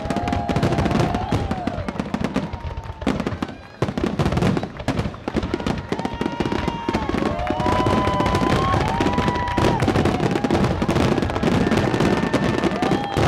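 Fireworks finale: a dense, continuous barrage of rapid bangs and crackling shell bursts, easing briefly about three seconds in and then building again. Sustained high tones sound over the barrage.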